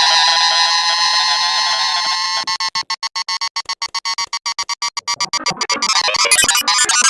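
Electronic synthesizer music. A held chord, about two and a half seconds in, starts cutting on and off rapidly in a stutter, then breaks into a dense, clattering electronic jumble.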